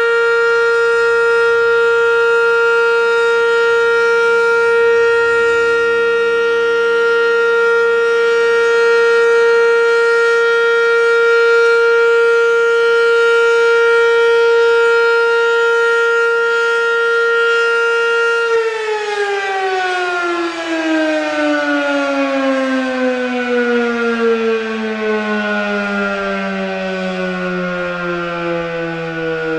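American Signal OM-117 omnidirectional outdoor warning siren sounding a loud, steady full-alert tone. About two-thirds of the way through it shuts off and winds down, its pitch falling steadily.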